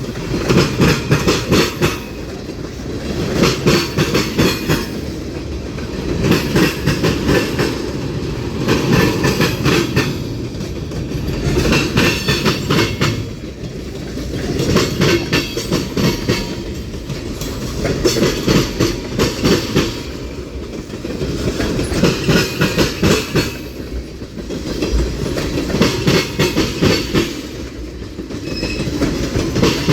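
Freight train cars rolling past, the wheels clacking over rail joints in a repeating clickety-clack, a cluster of loud clacks about every two seconds as each car's wheel trucks go by.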